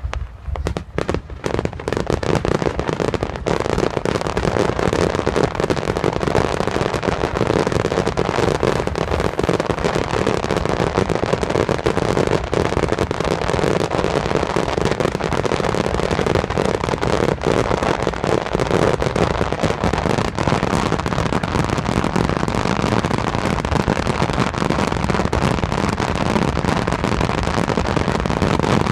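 Finale barrage of aerial fireworks: countless shell bursts and crackles merging into one loud, continuous din. It is thinner for the first couple of seconds, then holds steady.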